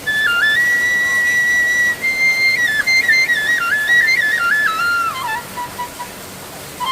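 Background music: a solo flute plays a melody of held and stepping notes that drifts downward near the end, over a steady hiss.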